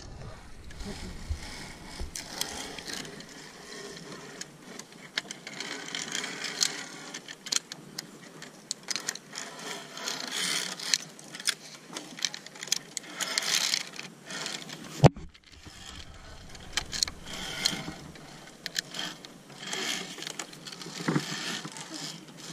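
Zip line trolley and clip gear rattling and scraping on the steel cable, with many small clicks and swells of hiss. One sharp click comes about fifteen seconds in.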